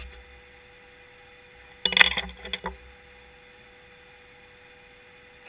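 A short cluster of light metallic clinks about two seconds in, over a faint steady hum.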